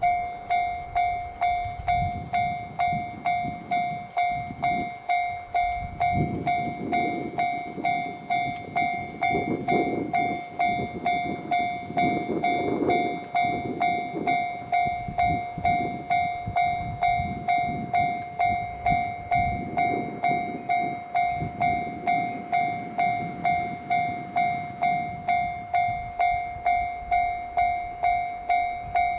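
Japanese level-crossing warning bell ringing steadily at about two strikes a second. Under it, the 87-series diesel train rumbles past over the rails from about two seconds in, swelling several times as its cars go by, and fades out a little past twenty seconds while the bell keeps ringing.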